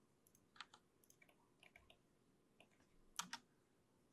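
Faint, scattered clicks of a computer keyboard and mouse as Blender shortcut keys are pressed, the loudest a quick pair about three seconds in.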